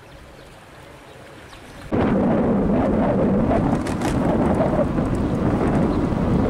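Loud wind buffeting on the camera microphone as the camera moves along the promenade, a rough, rumbling noise that starts abruptly about two seconds in and cuts off sharply at the end. Before it there is only faint outdoor ambience.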